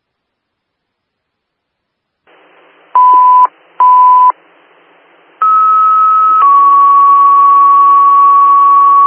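Fire dispatch tone-out over a radio scanner. After the radio hiss opens, two short beeps sound about a second apart. Then comes a two-tone page: a higher steady tone for about a second, stepping down to a slightly lower tone held for several seconds, alerting fire department personnel to a call.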